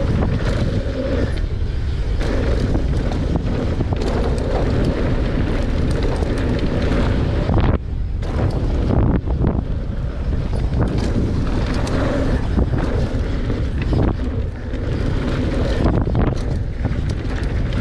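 Wind buffeting a GoPro microphone during a fast downhill mountain bike descent, over tyres rolling on rock and dirt and frequent clattering knocks from the bike over rough ground. There is a brief lull about eight seconds in.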